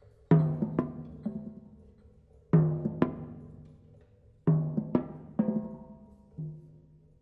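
Drum kit toms struck by hand in loose groups of two or three hits, with a softer single stroke near the end. Each stroke gives a low pitched boom that rings and fades over about a second.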